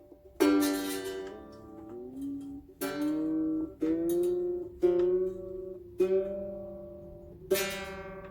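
Mandolin strings plucked one at a time, about six plucks, each note ringing and dying away, with the pitch of some notes sliding as a tuning peg is turned: the instrument is being tuned up.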